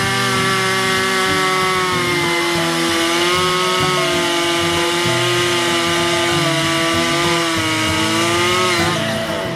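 Chainsaw running at full speed, cutting through framing lumber; its steady whine sags slightly in pitch a few times under load, then falls away near the end as the saw is let off.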